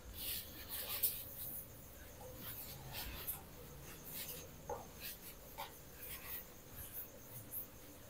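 Faint, short, irregular strokes of something rubbing across a whiteboard as it is worked by hand.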